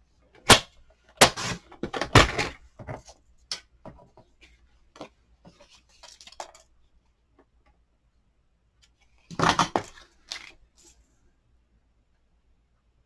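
Cardstock being handled and cut on a paper trimmer: sharp clicks and knocks, light paper rustling, and a short, denser scrape about nine and a half seconds in.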